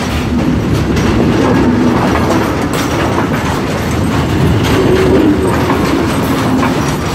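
Loaded timber stake wagons of a freight train rolling past close by: a loud rumble of wheels on rail, with repeated clicks and knocks as the wheels clatter over the rail joints.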